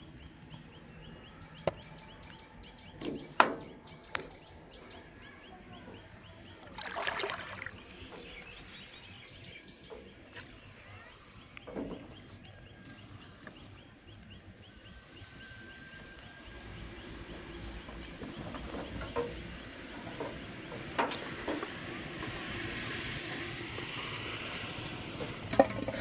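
Small open boat on a river: a few sharp knocks and taps on the hull, and a short splash-like rustle about seven seconds in, over steady outdoor ambience with faint regular ticking.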